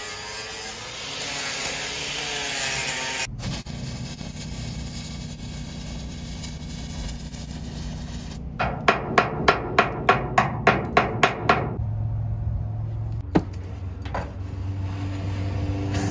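Engine-driven welder running steadily under the crackle of a stick-welding arc. A little past halfway comes a quick run of about ten hammer strikes on steel, followed by one more strike.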